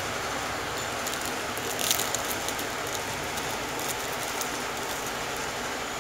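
Clear plastic sleeve crinkling and rustling as a paper warranty card inside it is flexed and slid out, with a burst of crackles about two seconds in and small scattered clicks after, over a steady hiss.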